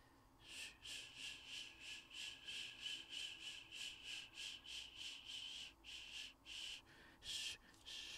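Trading cards rubbing against each other as thumbs inch one card out from behind another: a faint, rapid series of short raspy scrapes, about three a second.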